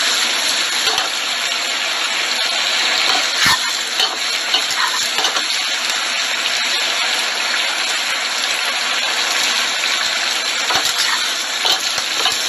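Chicken wings and basil sizzling in their sauce in a frying pan, stirred with metal tongs that click against the pan a few times.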